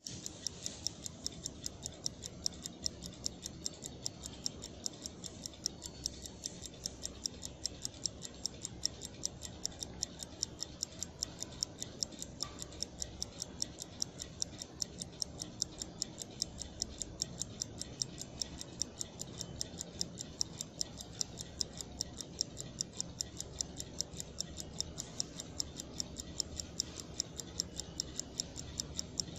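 Winner automatic skeleton watch's mechanical movement ticking fast and evenly, heard close up.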